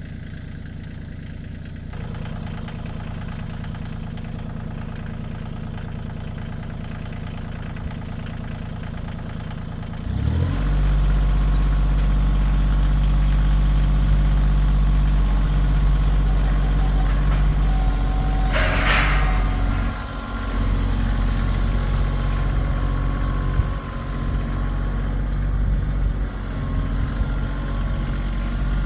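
Compact tractor's diesel engine idling steadily, then revving up about ten seconds in and running on at higher speed. A short rush of noise comes about two-thirds of the way through.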